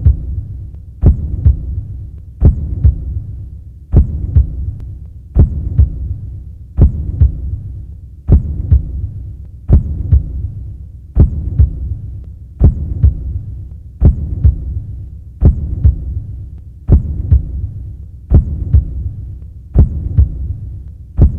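Slow heartbeat sound effect: a deep double thump, the second beat softer, repeating about every one and a half seconds over a low hum.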